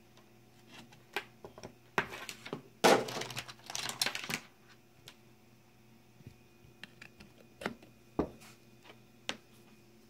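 Handling noise: sharp clicks and rustling, bunched together from about one to four and a half seconds in, then a few single clicks spaced a second or so apart.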